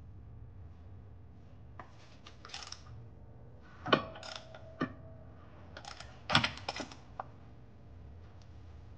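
Small steel hardware and tools clinking and tapping as torque-converter bolts and washers are handled and started into the flex plate. The taps are scattered; the loudest comes about four seconds in with a brief metallic ring after it, and a quick cluster of clinks follows around six to seven seconds in.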